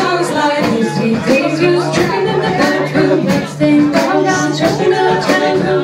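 Live band playing a song with guitar, drums and singing.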